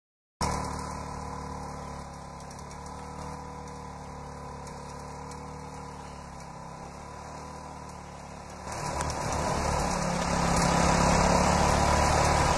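An engine running steadily, getting louder about nine seconds in.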